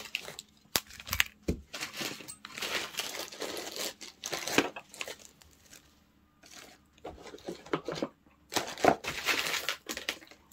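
Packaging crinkling in irregular bursts as items are handled, with a few sharp clicks about a second in.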